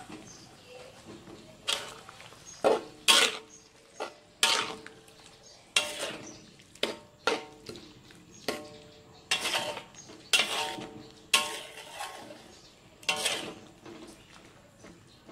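Metal ladle clanking and scraping against the side of a metal wok while stirring chunks of jackfruit in a thin curry broth: about a dozen irregular clinks, each with a short metallic ring.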